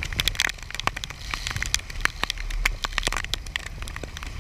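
Wind and spray on a boat running through rough seas: a low steady rumble under rapid, irregular crackling.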